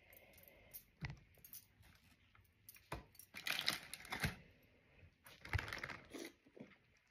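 Steamed oyster shells being handled: scattered sharp clicks and clinks, about four clear ones, with some crinkling in between.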